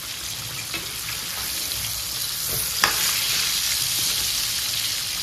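Battered chicken pieces deep-frying in hot oil in a steel kadai: a steady sizzle that grows a little louder over the first few seconds. A metal utensil stirs the pieces, with one sharp knock against the pan about halfway through.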